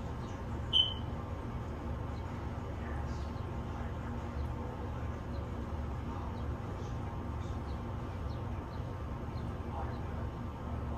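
Faint, scattered bird chirps over a steady low rumble, with one louder, short high chirp about a second in.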